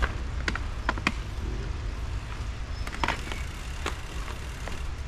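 Mountain bike rolling along, with a steady low wind rumble on the microphone and a handful of sharp, irregular clicks and rattles from the bike.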